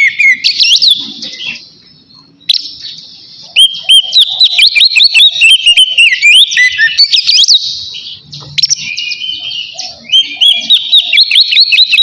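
Oriental magpie-robin (kacer) singing loudly in fast runs of sweeping whistled notes, the full open song that keepers call "ngeplong". It pauses briefly about two seconds in and again near eight seconds.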